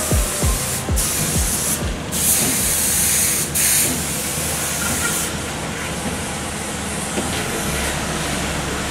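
Pressure-washer spray hissing onto a car body, cut off briefly three times and dying away about five seconds in, leaving a steady low rush.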